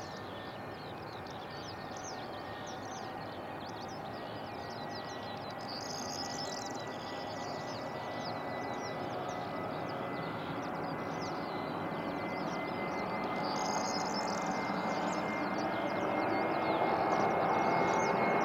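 Airbus A320-232's IAE V2500 turbofan engines at takeoff thrust during the takeoff roll: a distant, steady jet rumble with a thin whine, growing gradually louder as the aircraft approaches. Many short high chirps run above it.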